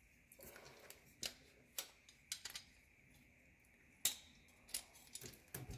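Faint, scattered metallic clicks as the retaining ring is pried off a garbage disposal's metal sink mounting assembly by hand, with the loudest click about four seconds in.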